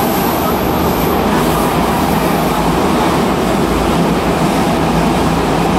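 Stockholm metro train running at speed, heard from inside the car: a steady loud rumble and roar of wheels on rail and traction motors. A faint high whine fades out about a second in.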